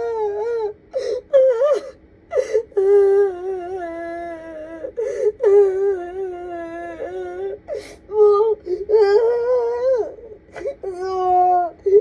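A woman sobbing and wailing: long, drawn-out, wavering cries of one to three seconds each, broken by catches of breath. It is the distressed crying of someone overcome with grief.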